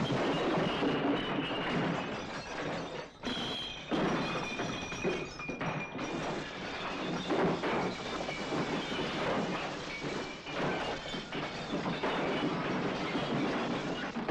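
Glass bottles and crockery on bar shelves being smashed: repeated crashes, thuds and shattering glass, over background music.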